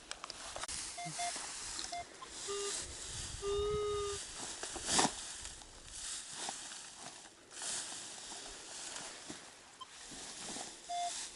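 Metal detector beeping as it is swept over the ground: a few brief high beeps and two lower, longer tones about three and four seconds in, over footsteps and rustling through grass. A single sharp thump about five seconds in.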